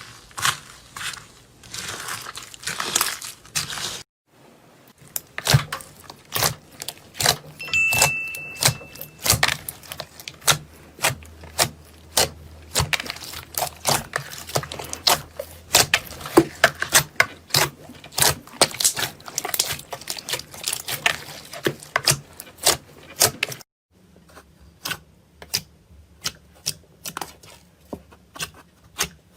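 Slime being squeezed and poked by hand: a quick, irregular run of sharp clicks and crackles, broken by brief gaps about four seconds in and again near the end.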